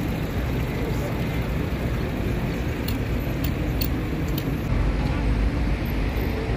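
City street ambience: road traffic with cars and buses running past, mixed with people talking nearby. A few sharp clicks come around the middle, and the low rumble grows heavier for the last couple of seconds.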